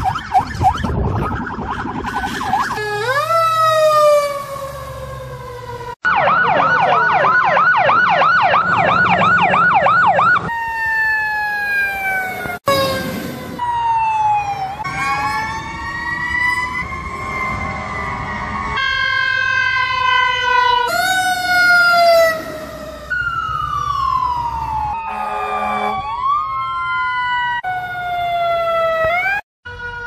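Emergency vehicle sirens, one after another: electronic sirens wailing in slow rising and falling sweeps, with a stretch of fast yelp at about four cycles a second, the sound changing abruptly every few seconds as one vehicle's siren gives way to another's.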